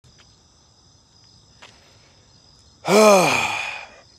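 A man's long voiced sigh about three seconds in, its pitch rising then falling as it trails off, over a faint steady chirring of crickets.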